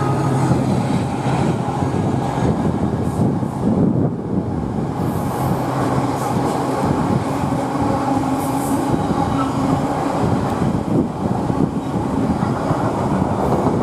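Freightliner diesel locomotive running as it passes, followed by a long container freight train rolling by with steady wheel-on-rail noise and a few faint, brief wheel squeals.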